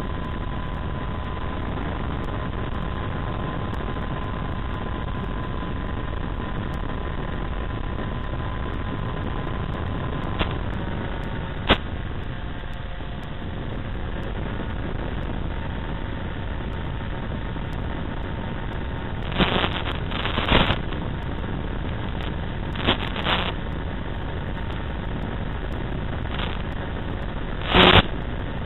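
Brushless electric motor and propeller of an RC foam plane in flight, a steady whine over rushing air noise that drops a little in pitch twice as the throttle eases. In the second half, short bursts of loud crackling static break in several times, the loudest near the end as the video link breaks up.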